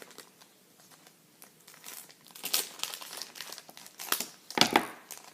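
Plastic packaging crinkling and being pulled open by hand, in irregular rustles that grow busier after the first second and a half, loudest about four and a half seconds in.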